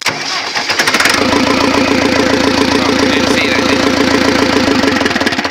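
Ford 5000 tractor engine being started by touching a wire to the battery: it turns over on the starter and runs with a rapid, even clatter, then stops abruptly near the end.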